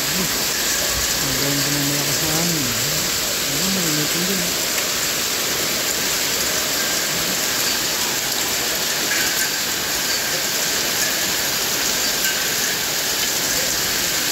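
A shower of small hail mixed with rain falling steadily on tile roofs and brickwork, a dense, even hiss that holds at one level.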